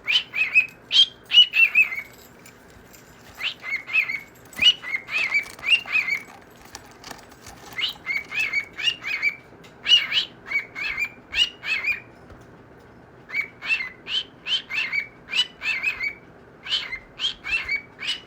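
Pet parrot chirping: a fast run of short, high chirps, several a second, in bursts of a few seconds with short pauses between.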